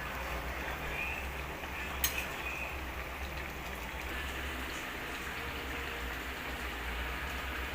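Chicken sizzling and bubbling in a pan: a steady hiss, with one sharp click about two seconds in.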